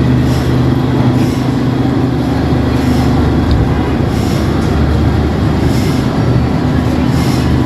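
Ferry's engines running with a steady, loud low hum that does not change.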